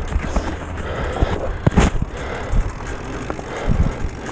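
A vehicle running over rough ground: a steady low hum with frequent knocks and clatters, the loudest a little under two seconds in.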